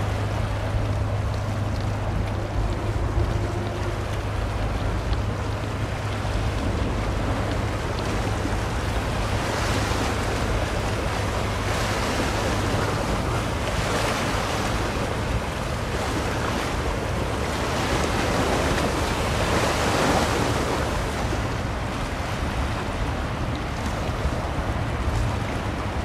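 Wind buffeting the microphone over water washing and lapping, with a steady low rumble beneath. Several swells of rushing wash come through between about ten and twenty seconds in.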